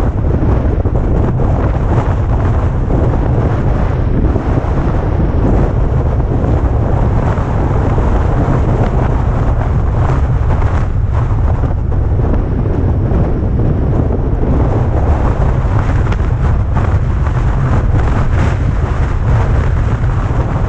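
Heavy wind noise on the microphone of a camera on a moving vehicle: a loud, steady low rumble with no let-up.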